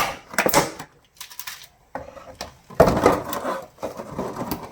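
A toy vehicle and its packaging being handled: a couple of sharp clicks at the start, then, almost three seconds in, a loud spell of rustling and plastic clatter.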